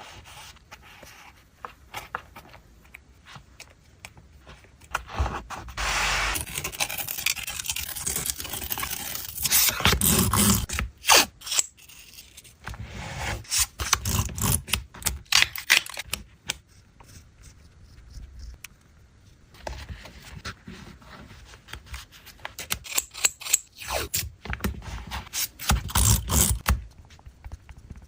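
Close-up paper and stationery handling for a journal collage: paper scraping and rustling in uneven stretches, with many small sharp taps and clicks between them.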